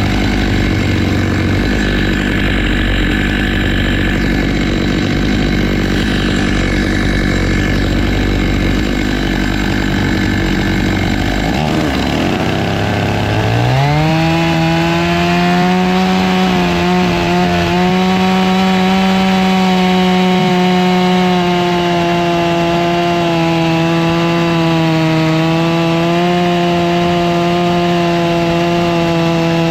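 Stihl MS 661 two-stroke chainsaw on a chainsaw mill, ripping a black walnut log lengthwise into slabs. The engine runs rough and lower at first, then rises in pitch about 13 seconds in and holds a steady, higher note.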